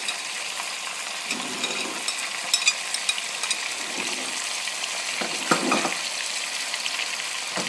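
Chicken pieces with fried onions and whole spices sizzling steadily in hot oil in a pot, with scattered sharp clicks and a louder knock about five and a half seconds in.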